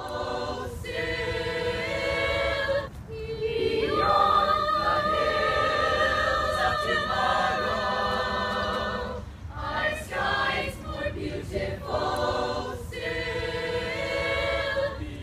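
A choir of mixed voices singing together in long held chords, phrase by phrase, with short breaks between the lines.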